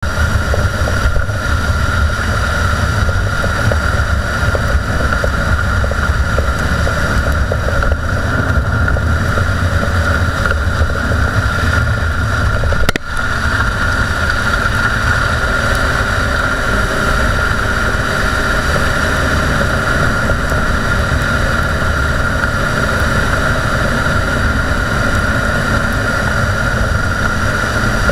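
Road and tyre noise picked up at a Dodge Durango's front suspension while driving, with a steady low rumble and a constant whine-like tone over it: the growl of a worn front wheel hub bearing. The sound breaks off for an instant about 13 seconds in.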